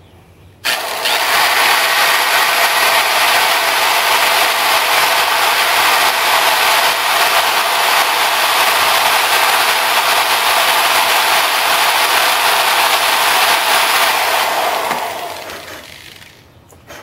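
Corded electric drill running steadily as it bores a hole through a muzzleloader pistol's trigger assembly. It starts suddenly about a second in and winds down near the end as the drill is switched off.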